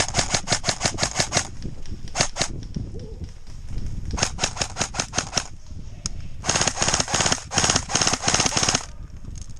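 Airsoft electric rifle firing rapid full-auto bursts, several in a row with the longest near the end: covering fire for a teammate's dash.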